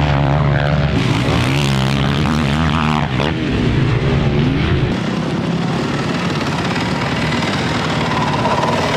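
Motocross bike engines revving on the track, the pitch rising and falling with throttle and gear changes. After about five seconds the sound turns steadier and noisier, with the engine tone less distinct.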